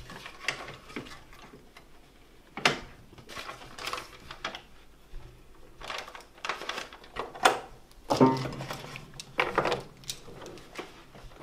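Irregular clicks and knocks of a paper pianola roll being fitted into the player piano's spool box by hand.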